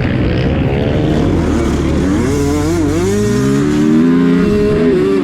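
Several motocross dirt bikes racing, their engines revving up and down as they change pitch, with one climbing steadily as it accelerates about three seconds in.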